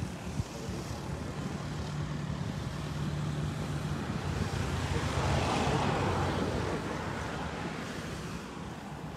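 A van's engine runs close by as a steady low hum. A louder rushing swell comes and goes around the middle.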